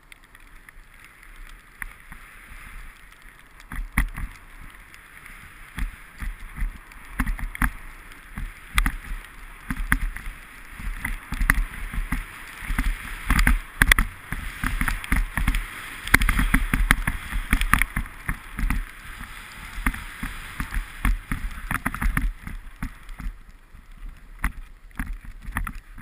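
Skis hissing and scraping over packed snow during a downhill run, with wind buffeting the GoPro's microphone in dense low thumps and crackles. It grows louder through the middle and eases off near the end.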